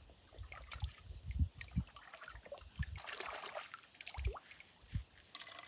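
Lake water trickling and dribbling as a bottle is dipped in and filled at the water's edge, with small drips and splashes. A few low thumps are heard through it.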